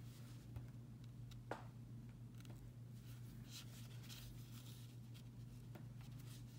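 Faint scratching and rustling of a needle and thread being worked through a yarn-wrapped embroidery ball as hands turn and handle it, with a sharp click about one and a half seconds in, over a steady low hum.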